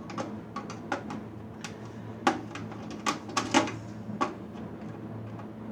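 Irregular clicks and clatter of small metal and plastic server parts being handled and pulled apart by hand, with a cluster of louder knocks in the middle.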